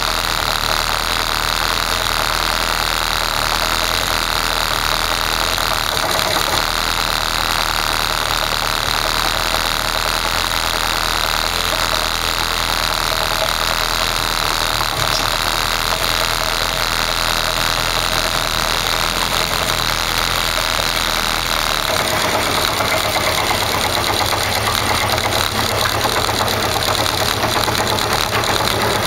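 Kawasaki Zephyr 550's air-cooled inline-four engine running steadily at idle. About 22 seconds in the sound changes abruptly, with more low rumble.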